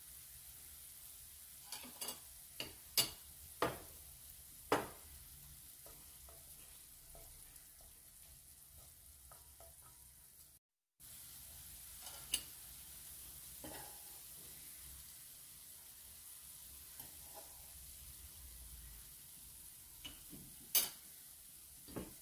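Chopped onions and tomato paste sizzling steadily in oil in a stainless steel frying pan while being stirred. Sharp knocks of utensils against the pan, about five in the first few seconds and a few more near the end.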